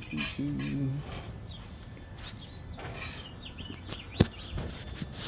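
A man's voice briefly, then a low steady background with a few faint chirps, and one sharp click about four seconds in.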